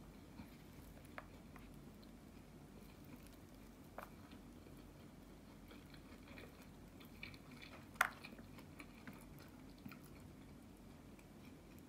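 Wooden chopsticks stirring and lifting instant yakisoba noodles in a plastic tray: faint scattered clicks and scrapes over a low steady hum, with one sharper click about eight seconds in.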